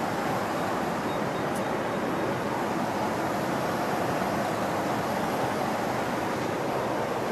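Airliner cabin noise: a steady, even rush of engines and air.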